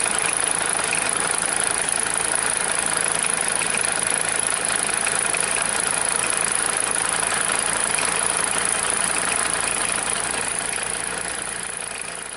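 Jensen No. 5 toy steam engine running steadily, driving the belts, pulleys and line shafts of a miniature workshop: a dense, even mechanical chatter. It fades down near the end.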